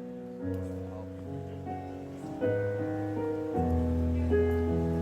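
Piano playing the slow instrumental intro of a ballad, one sustained chord after another with a new chord about every second, building slightly louder.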